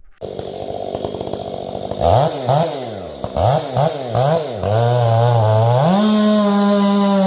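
Ported Stihl 500i fuel-injected two-stroke chainsaw running: the throttle is blipped up and down about five times, held briefly at a steady lower speed, then from about six seconds in opened up to a steady high-pitched wide-open throttle.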